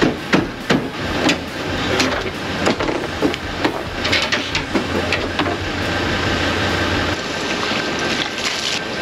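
Irregular metal knocks and clanks of hand tools prying and working at a pickup truck's steel tailgate as it is taken off, most frequent in the first half.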